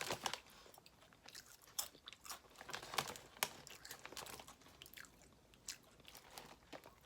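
A person chewing crunchy Lay's deep dish pizza potato chips close to the microphone, a run of short, irregular crunches.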